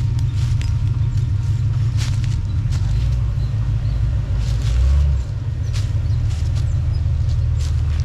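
Low engine rumble of an off-road truck crawling a trail, swelling briefly about halfway through, with a few light clicks over it.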